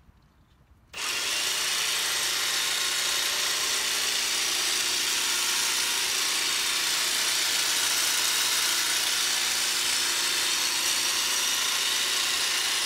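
Battery-powered Milwaukee M18 Fuel Quick Lok articulating hedge trimmer starting about a second in and running steadily as its blades cut along the top of a hedge.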